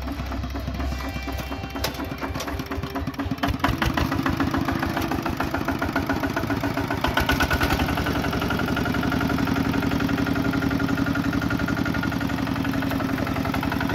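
Kubota ZT155 walking tractor's single-cylinder diesel engine running with a regular chugging beat, growing louder about four seconds in and then running steadily.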